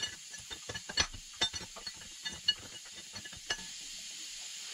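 Irregular light metal clicks and clinks of hand tools and fittings being worked on a tractor engine, some sharper than others, stopping after about three and a half seconds and leaving a faint steady hiss.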